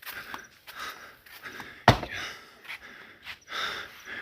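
An axe chopping into a firewood log: one sharp, loud strike about two seconds in, with fainter knocks and rustles around it.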